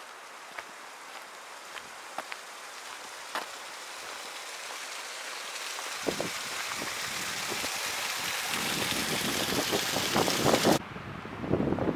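Wind gusting on the microphone, building from about halfway through over a steady hiss with scattered light ticks; it cuts off suddenly near the end.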